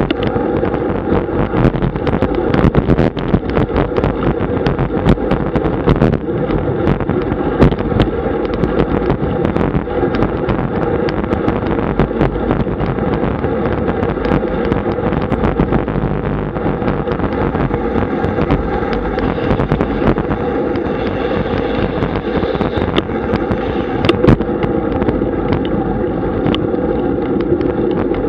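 Wind rushing over a Garmin VIRB action camera's microphone on a moving road bike, with a steady rumble of tyres on asphalt. Frequent sharp clicks and rattles run through it.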